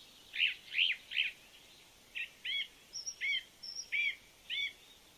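A bird calling: three arched chirps, then after a short gap a run of five quicker chirps, with a couple of short, higher, thin notes among them.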